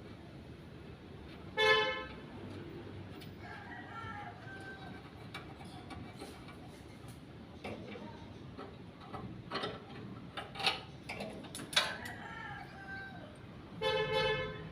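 Two short honks of a vehicle horn, one about two seconds in and one near the end, with scattered knocks and clatter in between.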